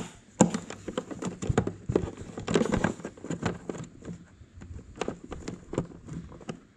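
Irregular clicks, taps and rustling as a wiring harness and its plastic connectors are pushed and tucked by hand into an ATV's battery bay.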